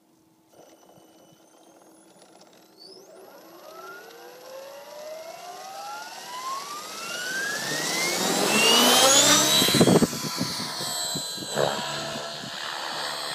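Align T-Rex RC helicopter spooling up on its pad: a whine that climbs steadily in pitch and grows louder for about nine seconds. The sound changes abruptly as it lifts off and settles into a steady rotor drone.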